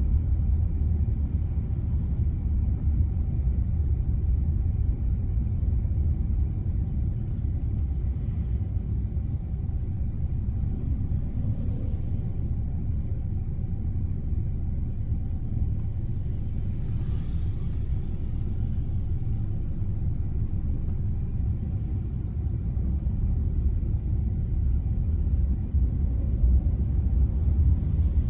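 Taxi on the move: a steady low rumble of road and engine noise, swelling a little near the end.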